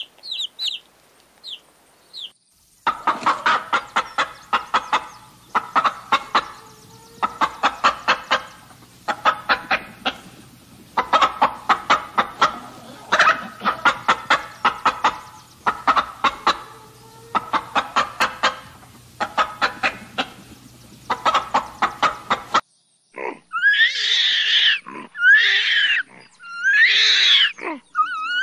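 Domestic chicks give a few short, high peeps, then a hen clucks in quick runs of clucks repeated about every two seconds. Near the end a different animal takes over with loud calls that rise and fall in pitch.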